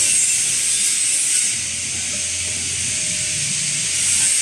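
Loud steady hiss, strongest in the high range, with a faint low hum for a second or so partway through.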